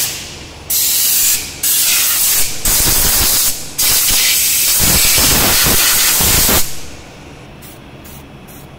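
Compressed-air blow gun blowing dirt off a pickup's rear leaf spring pack to clean it, in several loud hissing blasts. The last and longest lasts about three seconds and cuts off about two-thirds of the way in. Near the end come a few short, faint spritzes from an aerosol can of anti-noise coating.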